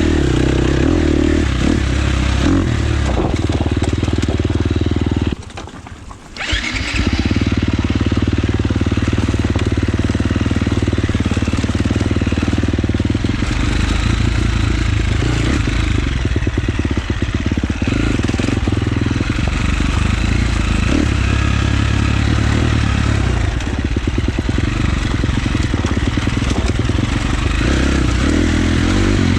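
Husqvarna FX 350 four-stroke single-cylinder dirt bike engine running hard, its pitch rising and falling. The sound drops away abruptly about five and a half seconds in, then comes back about a second later.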